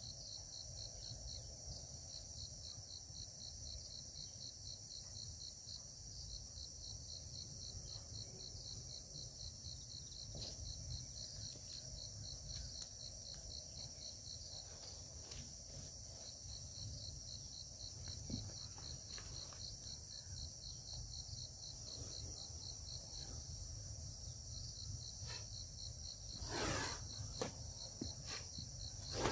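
Insects, crickets by their sound, chirring steadily: a fast pulsing trill over a continuous high whine. Near the end there is one short burst of rustling noise.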